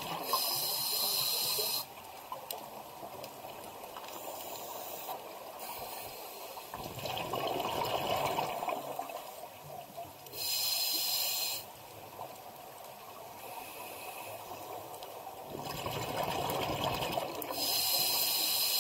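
Scuba diver breathing through a regulator underwater: three inhalations, each a short hiss from the demand valve, alternate with two exhalations, each a longer burst of bubbles gurgling out of the exhaust valve, in a slow, even breathing cycle.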